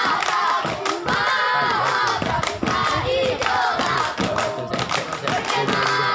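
A group of young scouts chanting and shouting together in a rhythmic yell routine, punctuated by many sharp claps.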